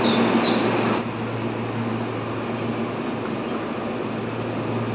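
Keihan 13000 series electric train standing at the platform: a steady low hum from its onboard equipment under station noise, louder during the first second.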